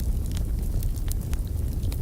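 Wood fire burning in a fireplace: a steady low rumble of flames with frequent small, sharp crackles and pops from the logs.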